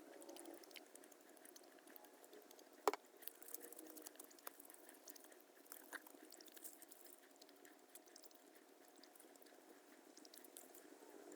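Near silence: faint room hiss with a few scattered faint clicks, one sharper click about three seconds in.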